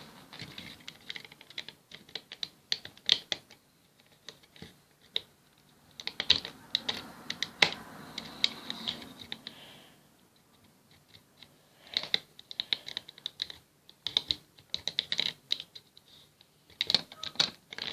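Bursts of rapid light clicking and tapping, in several runs with short quiet gaps between them.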